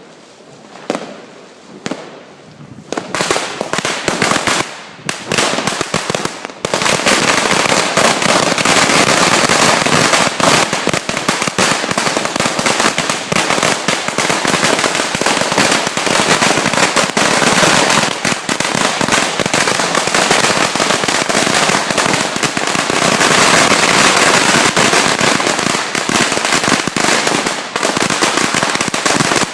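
A 100,000-shot firecracker string going off: a few scattered bangs at first, then from about seven seconds in a dense, unbroken rattle of rapid small bangs.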